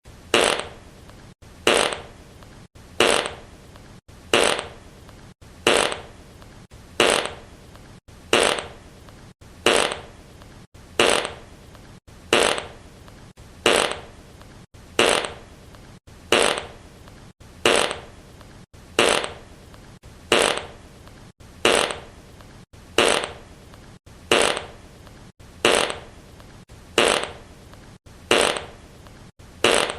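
Fart sound effect, one short fart looped over and over, about once every second and a half, each one loud at its start and tailing off.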